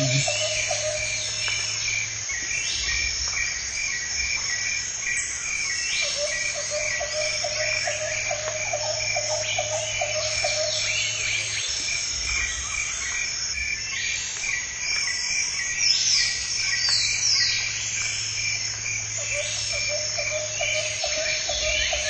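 Jungle ambience: a steady, rapidly pulsing insect trill throughout, a frog chorus croaking in stretches, and scattered bird calls with quick descending notes.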